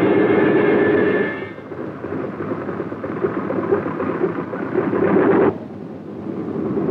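Piston engine and propeller of an early biplane running with a loud, rough drone. It drops back about a second in, keeps rumbling, then cuts off abruptly about five and a half seconds in, as at a splice in the film's sound track.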